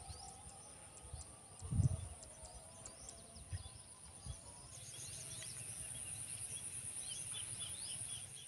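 Faint outdoor ambience: birds chirping over a steady high-pitched insect drone that grows louder about halfway through. A brief low rumble comes about two seconds in.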